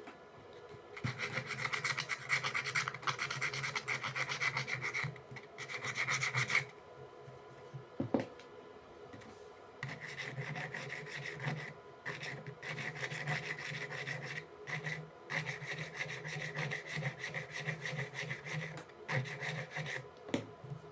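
Sandpaper rubbed rapidly back and forth over the metal pole faces of a contactor's magnetic core, sanding them smooth to stop the contactor's noise. It comes in two long spells of quick scratchy strokes, with a single knock between them.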